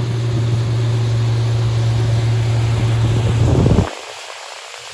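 Suzuki 115 four-stroke outboard running the boat under way, with wind and water noise, held at moderate revs for its break-in period. The loud drone cuts off sharply about four seconds in, leaving a quieter hiss.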